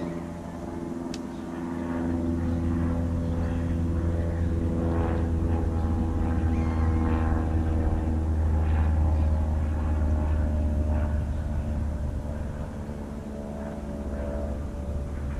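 A distant engine's steady drone that swells louder over several seconds and then fades away.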